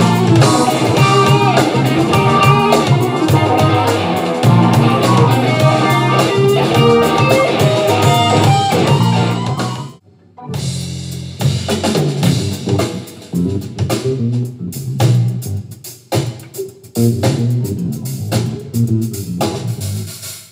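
Funk band playing live: electric guitar over electric bass and drums. About halfway through the sound cuts out briefly, then comes back as a sparser groove led by the bass guitar and drums.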